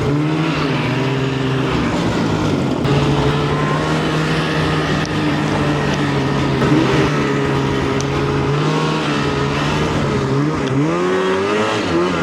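Snowmobile engine running steadily under way, its pitch swinging up and down near the end as the throttle is worked.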